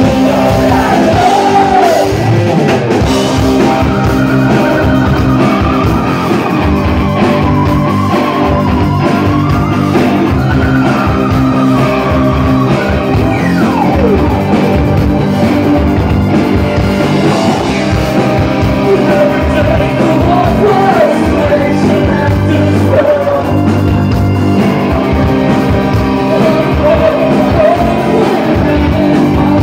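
Live rock band playing loudly: sung vocals over electric guitar, bass guitar, drums and keyboard.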